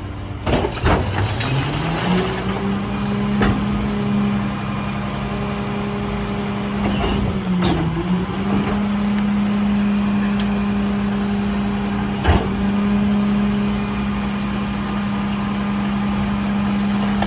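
Mack LR garbage truck's diesel engine revving up and holding a high, steady speed to drive the McNeilus rear loader's hydraulic packer through its compaction cycle. The engine speed sags briefly midway. Scattered clanks and one sharp bang about twelve seconds in come from the packing.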